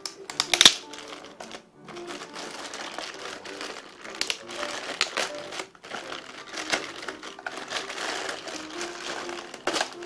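Plastic packaging bag crinkling and crackling as hands unwrap a product, with irregular sharp rustles throughout; the loudest crackle comes about half a second in.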